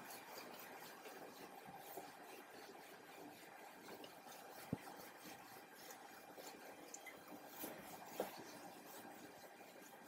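Near silence: faint rubbing of a duster wiping a whiteboard, with a few soft ticks, one about halfway through and one near the end.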